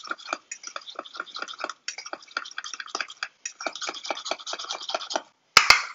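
A spoon stirring a dry spice seasoning in a small stainless steel bowl: quick scraping strokes, several a second, then two sharp clicks near the end.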